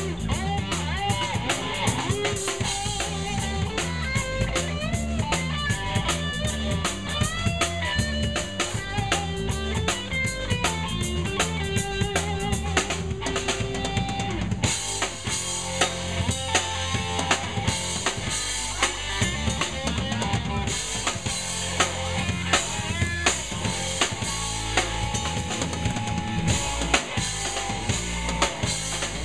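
Live rock trio playing an instrumental jam: electric guitar lead lines over electric bass and drum kit. From about halfway the drums come forward with busy cymbal playing, while the bass and guitar carry on underneath.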